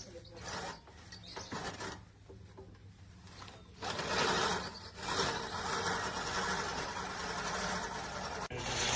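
Push reel lawn mower's five-blade reel spinning and clipping grass as it is pushed: patchy and quieter at first, then a steady whirring from about four seconds in.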